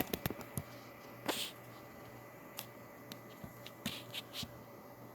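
A ceiling fan's switch being worked to shut the fan off: a scatter of short, light clicks, several in quick succession at the start and a few more near the end, over a faint steady hum.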